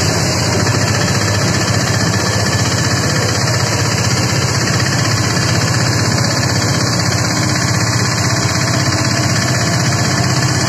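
Steady running of vehicle engines as motorcycles and cars drive slowly through floodwater on a road, under a constant hiss of traffic noise.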